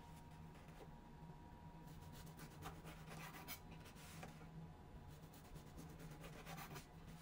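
Faint scraping and rustling of a knife sawing the crusts off a stack of white sandwich bread against a wooden cutting board, in a few short clusters of strokes.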